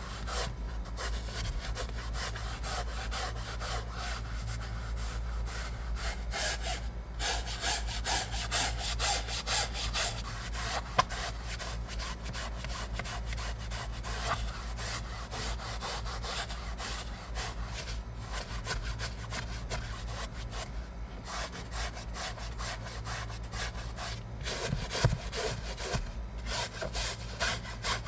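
Hand brush scrubbing a fabric car seat in quick back-and-forth strokes, stopping briefly a few times, over a steady low hum.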